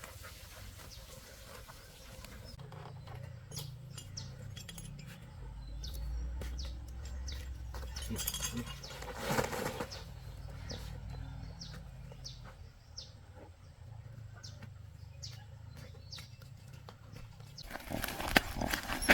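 Birds chirping in scattered short, high calls over a low rumble, with a louder rustling burst about halfway through.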